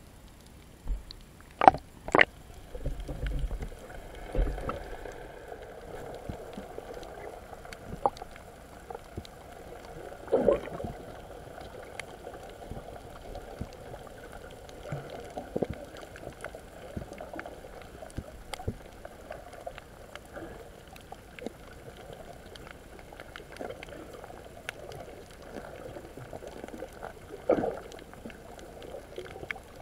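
Underwater sound picked up by a camera in a waterproof housing below the surface: muffled water sloshing and gurgling with a steady hiss, broken by occasional sharp knocks against the housing, two loud ones about two seconds in and another near the end.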